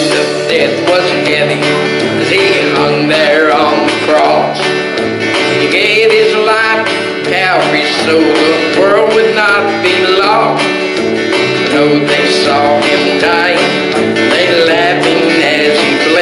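Country-style instrumental music with guitar and a bluegrass feel, playing steadily without singing.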